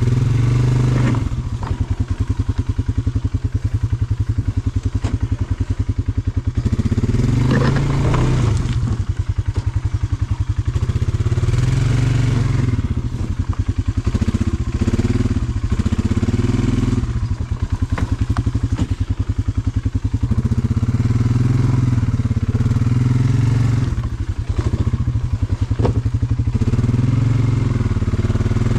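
Polaris Sportsman 570 ATV's single-cylinder engine running under load on a rocky climb, the revs surging and easing several times as the throttle is worked. A few sharp knocks of the machine against rock break through.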